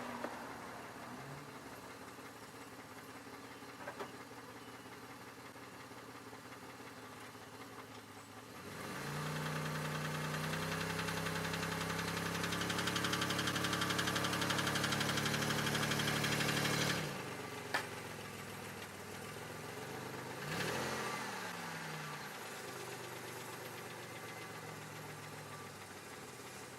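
2002 Chevy Malibu engine idling steadily. A much louder, steady running sound comes in about a third of the way through and cuts off suddenly after about eight seconds, followed by a single click.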